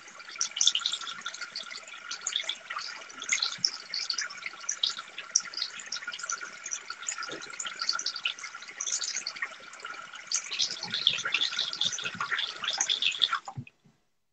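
Water running, a dense splashing hiss that stops abruptly near the end.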